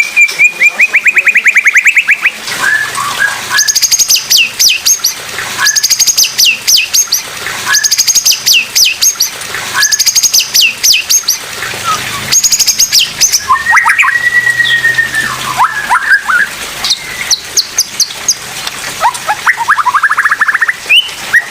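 White-rumped shama (murai batu) singing a loud, rapid-fire song of sharp staccato notes. A high phrase repeats about every two seconds, a held whistle comes about two-thirds of the way in, and quick rising notes follow near the end.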